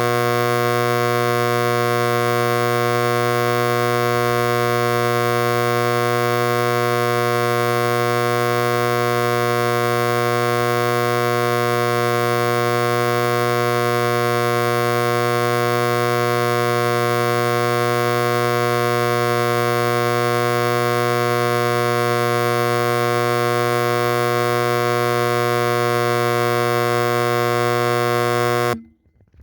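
Vintage Edwards AC Adaptahorn fire alarm horn sounding continuously: one loud, steady, unbroken low blare that cuts off suddenly near the end.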